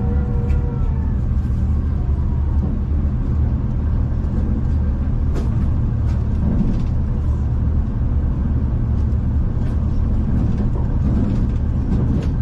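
Steady low rumble of a V/Line passenger train running along the track, heard from inside the carriage, with a few faint clicks.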